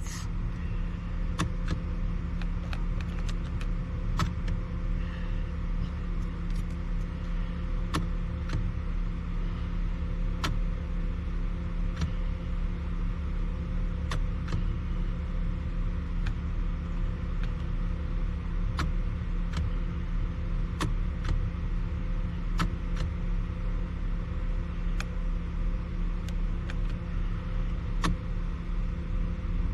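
Steady low mechanical hum from a car with the ignition switched on, with light sharp clicks every second or two.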